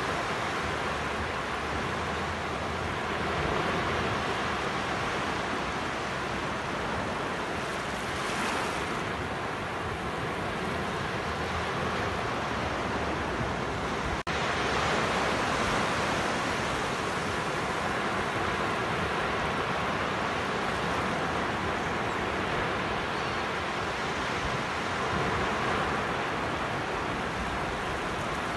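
Ocean surf on a sandy beach: small waves breaking and washing up the shore, an even rushing that swells and eases every five seconds or so.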